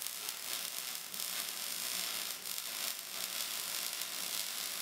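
A steady static-like hiss, strongest in the high pitches.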